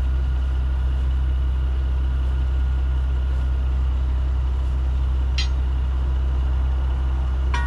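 Steady low drone of an idling diesel truck engine. Two short metallic clinks come through it, one about five and a half seconds in and one near the end, from steel tire irons working a trailer tire's bead off the rim.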